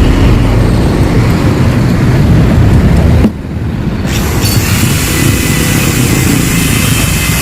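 Yamaha RX-King's two-stroke engine running through its exhaust, a loud, steady low rumble. The sound drops suddenly about three seconds in, then carries on a little quieter.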